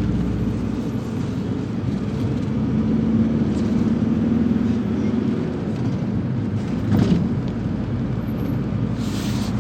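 Nizhegorodets-222709 minibus, built on a Ford Transit, heard from inside while driving: a steady engine and road rumble. The engine note swells slightly around three to five seconds in, and there is a single thump about seven seconds in.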